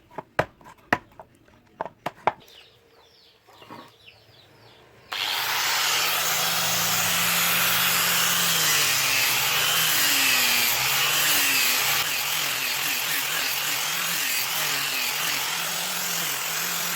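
A few sharp metal taps, then about five seconds in a power tool starts abruptly and runs steadily, grinding the steel of the knife blade with a low, wavering motor hum under the noise.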